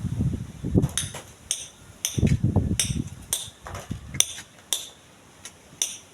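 Irregular sharp metallic clinks, about a dozen, of metal tools striking stone. Gusty wind rumbles on the microphone during the first four seconds.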